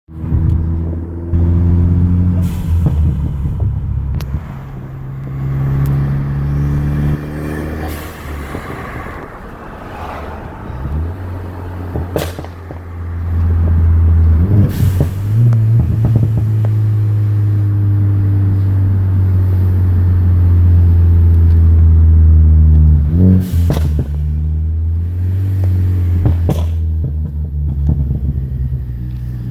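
Ford Focus ST engine and exhaust running and revving, with sharp pops and crackles scattered through, from a tune set up to make the exhaust crackle and pop.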